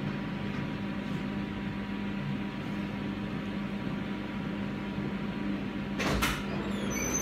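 Steady mechanical hum of room equipment with a low tone, with a brief bump about six seconds in.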